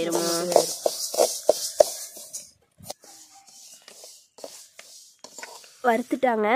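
Perforated steel ladle stirring and scraping sesame seeds in an aluminium pan over a wood fire. A quick run of scraping strokes with a dry rustling hiss of the seeds lasts about two seconds, then gives way to a few scattered faint clicks as the seeds finish roasting.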